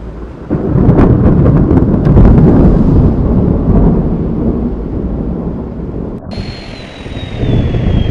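Thunder sound effect: a sudden loud clap about half a second in, then a deep rumble that slowly fades over several seconds. Near the end a thin high tone comes in and slowly falls in pitch, with a second swell of rumble just before the end.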